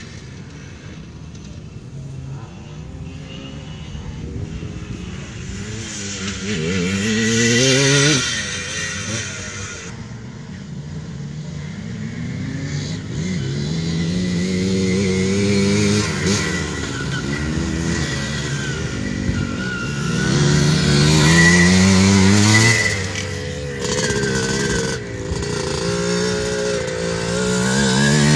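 Vintage enduro motorcycles riding a dirt field course, their engines revving up again and again as they accelerate out of the turns. The loudest rises come about a quarter of the way in, around three-quarters of the way through, and at the very end as a bike passes close.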